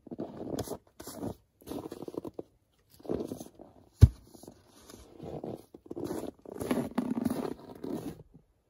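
Irregular crunching of footsteps in snow and split firewood logs being handled, with one sharp, loud thunk about four seconds in as an axe is swung into a wooden chopping block.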